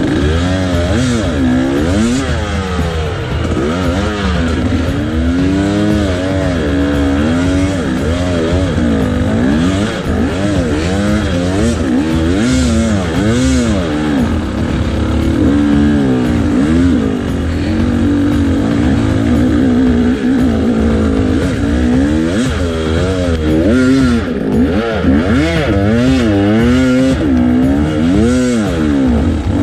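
Engines running, their pitch rising and falling over and over as they rev up and down, with a steady low hum beneath.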